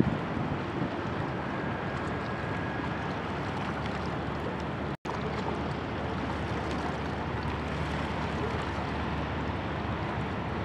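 Steady rumble of wind on the microphone and river water, with the low drone of an inland motor barge passing on the river. The sound cuts out for an instant about halfway through.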